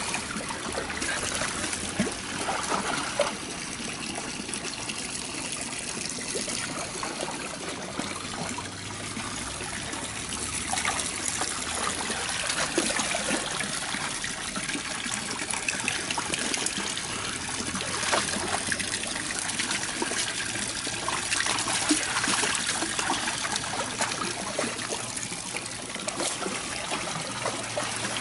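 Water trickling and splashing steadily, with many small irregular clicks and splashes through it.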